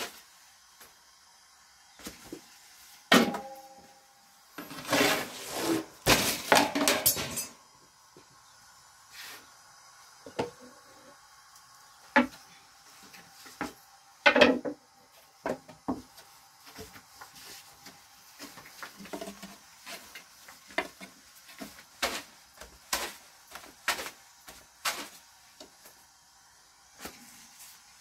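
Irregular wooden knocks and taps of a thin rolling stick against a wooden board as flatbread dough is rolled out and flipped, with occasional metal clinks from the griddle and trays, one of them ringing briefly about three seconds in.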